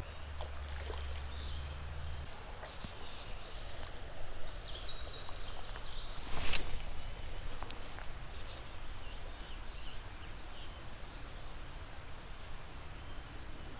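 Outdoor creek-side ambience with faint high chirping. A low rumble fills the first two seconds, and a single sharp click comes about six and a half seconds in.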